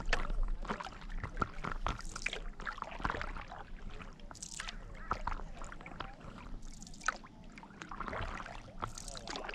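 Stand-up paddle strokes on calm water: the blade dipping and pulling through the water with splashes and drips, a splashier stroke every two to three seconds, and small clicks of water against the inflatable board.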